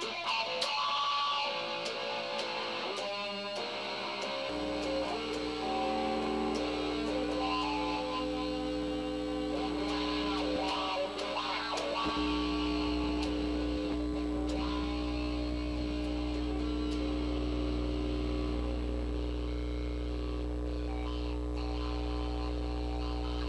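Electric guitar played through an amplifier: picked notes and strums for the first few seconds, then from about four seconds in long held notes ring on over a steady low amplifier hum.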